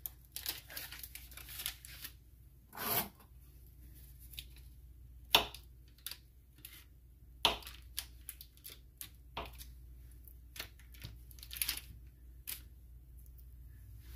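Paper wrapper tearing and rustling, with scattered small clicks and knocks, as sticks of margarine are unwrapped and handled.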